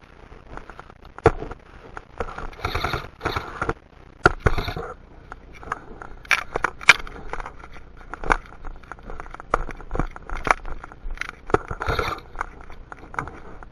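Irregular sharp clicks and short scraping rustles from a handheld camera being handled while its wearer moves, with a few louder clicks scattered through.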